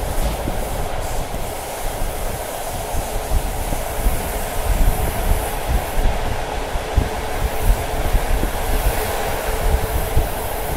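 Passenger train carriage running along the track at speed: a steady rumble of steel wheels on rail with irregular clacks and knocks over the joints. Wind buffets the microphone held out of the window.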